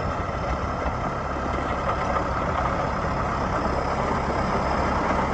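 John Deere 6100D tractor's diesel engine running steadily under load while pulling a land plane through a gravel driveway, its teeth ripping up the hard-packed gravel.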